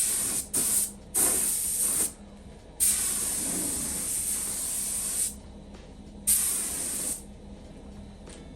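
Pressurised spray hissing in five short bursts, each switched on and off sharply; the longest lasts about two and a half seconds.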